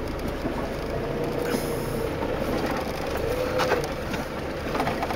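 Land Rover Discovery moving slowly along a rough off-road track, heard from inside the cab: steady engine and road rumble, with a few short knocks and rattles from the body.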